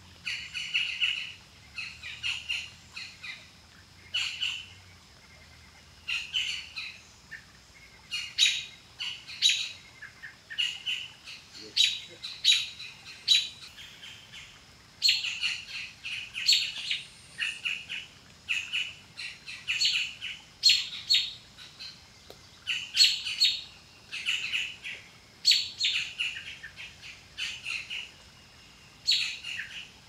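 Small woodland birds chirping, in quick clusters of short high notes that come every second or two with brief pauses between.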